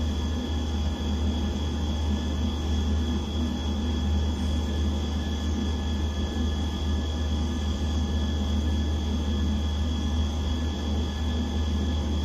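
A steady low hum with thin, constant higher-pitched whines over it, unchanging throughout, with no distinct events.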